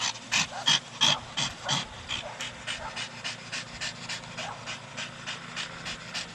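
Staffordshire Bull Terrier panting rapidly, about three breaths a second, louder for the first two seconds, then softer.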